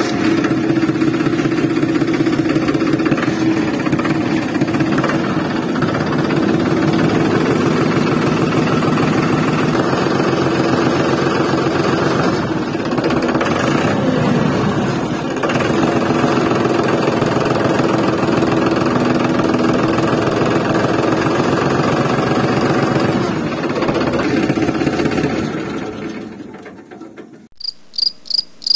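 Tractor engine running steadily with a fast, even chug, fading out near the end.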